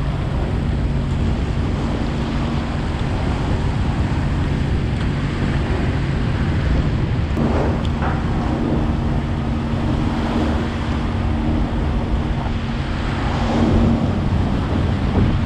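Fishing trawler's engine humming steadily, with wind buffeting the microphone and sea water rushing past the stern. A second steady hum joins about halfway through.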